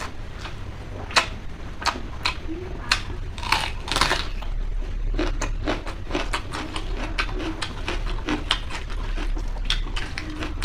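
Close-miked chewing and crunching of food, with wet mouth clicks. The clicks are scattered at first and come thick and fast through the second half, over a steady low hum.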